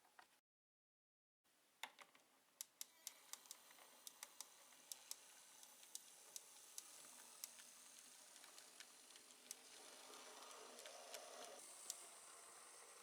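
Z-scale V60 model locomotive with a digitised 3-pole motor running on the layout: light irregular clicks from the track over a faint, steady whir that slowly grows louder.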